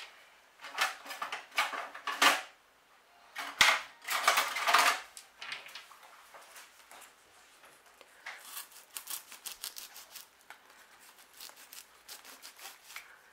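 Close rustling and clicking from hands handling things near the microphone: two louder rustling spells in the first five seconds, then a run of light ticks and clicks.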